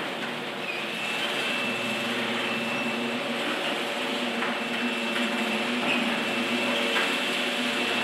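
Chain-drive garage door opener running as it lowers the door, a steady motor hum and chain rattle, powered from a 1500-watt inverter. A thin steady high tone starts under a second in, the inverter's warning, which the owner takes as a sign it could be overloaded.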